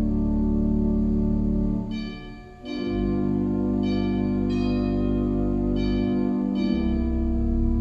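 Church organ music: held chords over a deep sustained bass, with a short break about two and a half seconds in before the next phrase begins.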